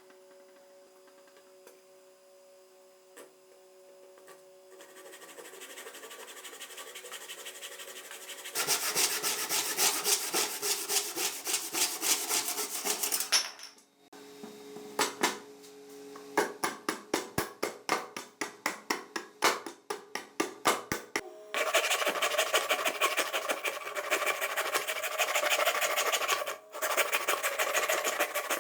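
Hand abrasion on the cleaver: rapid back-and-forth rasping strokes that start about a third of the way in, break into separate strokes at about four a second in the middle, then run on continuously again.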